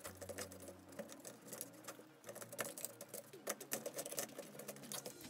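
A screwdriver pushing a cloth into the metal heatsink bracket of an amplifier circuit board: quick, irregular scratching, scraping and light tapping as the metal is scrubbed clean.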